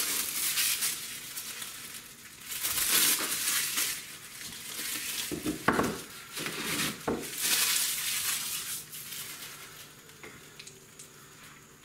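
Crinkling and rustling of plastic packaging as a pack of Roman candles is unwrapped and handled, in irregular bursts with a few light knocks midway.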